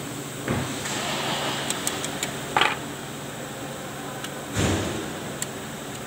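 Metal clicks, scrapes and knocks from rear drum brake shoes and their spring hardware being handled and fitted by hand. There are two heavier knocks, one about half a second in and one a little after four seconds, a short scrape in between, and several light clicks.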